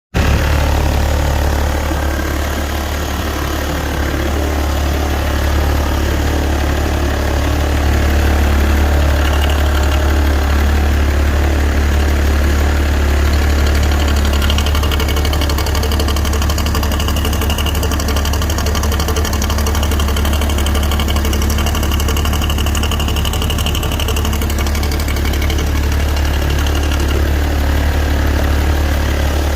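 BMW car engine idling steadily with a knocking noise running through it.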